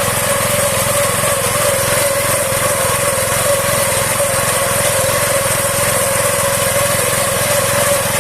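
Mini combine harvester running steadily, its engine and mechanism giving a constant whine over a low hum.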